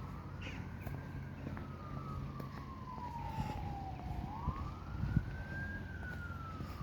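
Emergency vehicle siren sounding a slow wail, rising and falling in pitch twice.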